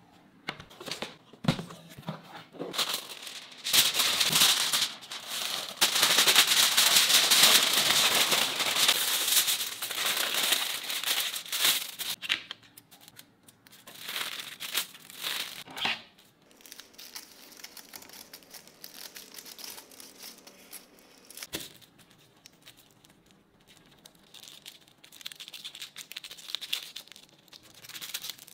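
Aluminium foil crinkling and crackling as a sheet is handled, smoothed flat and folded; loudest for several seconds a few seconds in, then quieter, scattered crinkles as it is folded into a small strip.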